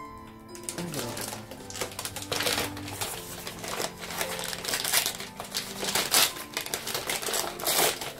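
A small wrapped gift box being opened by hand: a fast, uneven run of paper crackling and crinkling with sharp little clicks, starting about half a second in. Soft background music with held notes plays underneath.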